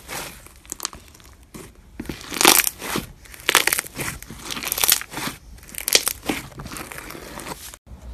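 Hands squeezing and kneading crunchy floam, pink slime packed with tiny foam beads, giving a burst of crunching with each squeeze, about one a second. The sound cuts off sharply near the end.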